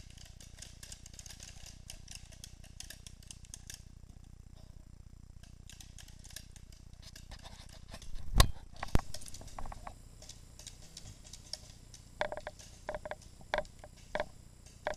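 Footsteps crackling over dry pine needles and twigs on a woodland floor, then a loud sharp knock about eight seconds in, a second one just after, and a run of sharp pops near the end.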